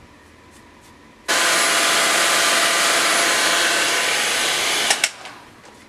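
Handheld hair dryer switched on about a second in, blowing steadily, then switched off near the end. It is drying a freshly applied layer of wig gel along the hairline.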